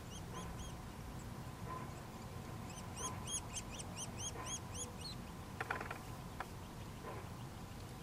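Nuttall's woodpecker nestlings begging while being fed at the nest cavity: runs of rapid, high, arched calls, about four a second, a short run at the start and a longer one about three seconds in. A few faint clicks follow near six seconds.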